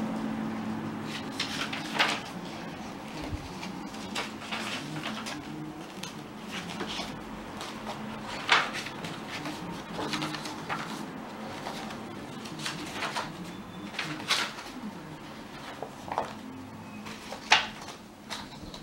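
Paper pages of a handmade journal being turned by hand: a string of short papery flaps and rustles at irregular intervals, a few of them sharper and louder.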